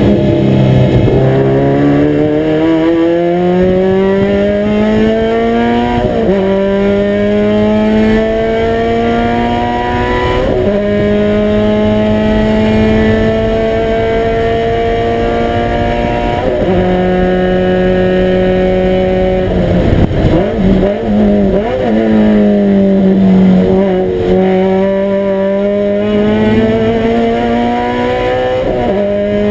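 Toyota 86 race car's 2.0-litre flat-four engine under hard acceleration on track, heard from inside the cockpit: the engine note climbs in long pulls broken by gear changes. About two-thirds of the way through it drops with several quick blips, then climbs again near the end.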